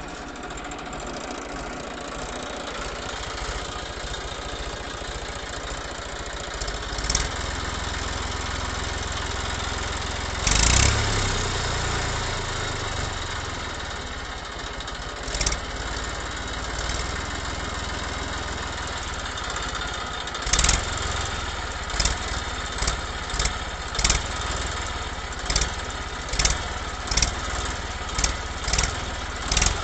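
Tractor engine running steadily, with a louder surge about ten seconds in. In the last third, sharp knocks come at uneven intervals of roughly one a second.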